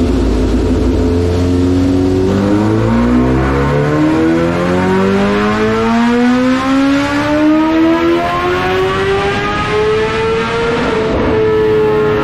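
Kawasaki Ninja H2's supercharged inline-four, breathing through a Vandemon full titanium exhaust, making a wide-open-throttle dyno pull. The engine note climbs steadily in pitch for about ten seconds, then levels off near the end.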